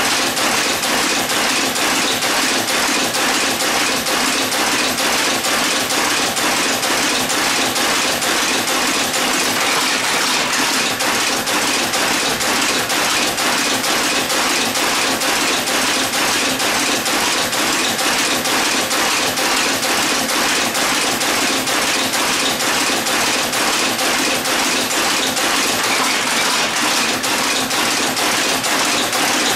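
Monotype composition caster running steadily, a fast, even mechanical clatter of its moving parts as it casts type.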